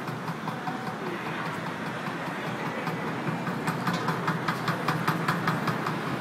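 Street bucket drumming on plastic buckets, a run of quick, even strokes that grows louder about halfway in, over steady city traffic noise.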